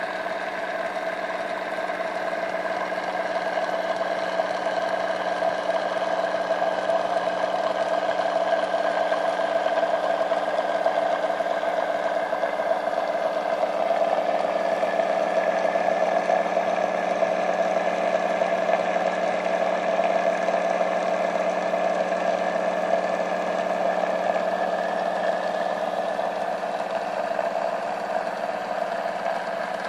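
Homebuilt Bedini-style rotor machine running: a steady mechanical hum of several fixed tones as its wheel spins, a little louder through the middle.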